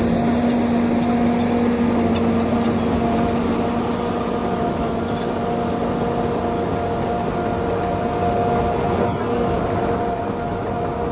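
John Deere 850 crawler dozer's diesel engine running steadily under work, a constant hum with a few held tones.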